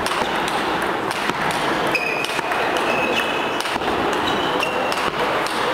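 Table tennis ball clicking off bats and the table in a rally, with several short high pings, over the steady echoing din of a large hall with other tables in play.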